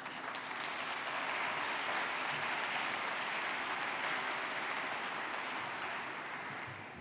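Audience applauding, building over the first second, holding steady, then dying away near the end.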